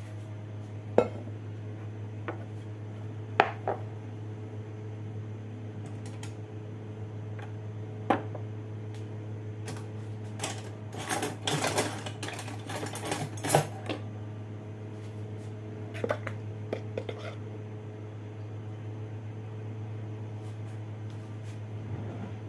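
Kitchenware clinking and knocking: a few separate sharp clinks, then a flurry of clattering about halfway through, over a steady low hum.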